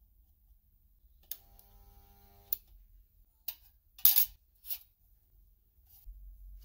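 Sheet-metal parts of an old carriage lamp being handled and fitted together: a string of sharp clicks and metal knocks, the loudest a short scrape about four seconds in. A brief steady hum starts with a click about a second in and stops with another.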